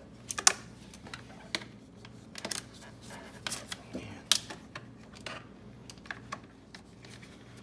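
Irregular light clicks and taps from handling a car door lock assembly while a rubber grommet is worked through a hole in its metal bracket.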